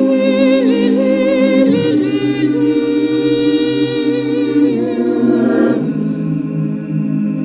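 Mixed choir singing a cappella: held chords, with a high voice singing with vibrato on top over the first couple of seconds, the chord shifting lower about two seconds in and again near six seconds.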